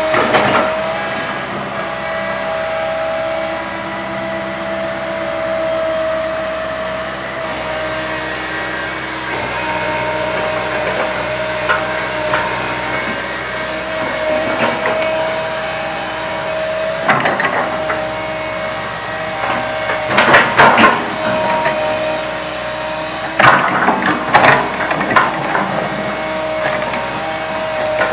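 Komatsu PC160 hydraulic excavator running steadily with a constant whine, broken by short bursts of clanking and knocking, several of them in the second half, while it digs.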